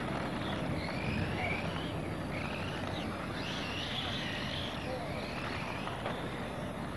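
Radio-controlled model race cars' motors whining, several high-pitched whines rising and falling as the cars speed up, slow and pass, over steady background noise.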